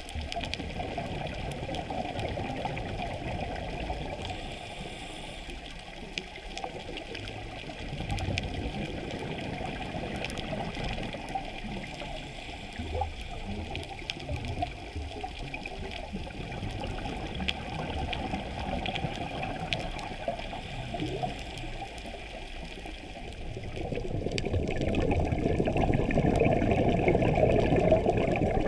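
Muffled, uneven water noise recorded underwater during a scuba dive, with no voices or music. It gets louder about 24 seconds in.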